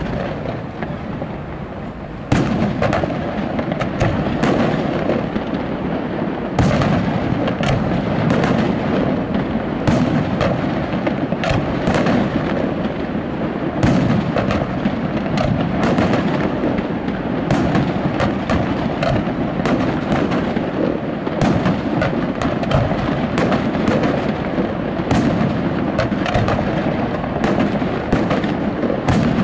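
Aerial firework shells bursting in a dense, continuous barrage: many sharp bangs one after another over a steady rumble. The barrage grows suddenly louder about two seconds in.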